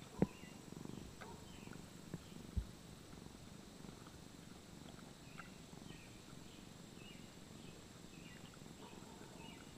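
Tortoiseshell cat purring steadily, a faint low rumble. Two sharp knocks stand out, about a quarter second in and again about two and a half seconds in.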